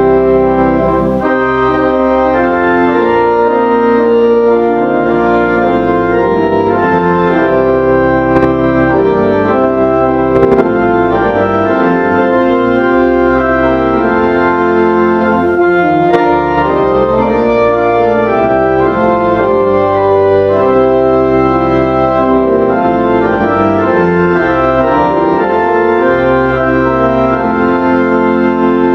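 Organ playing slow, sustained chords that change every second or so, in the manner of a hymn.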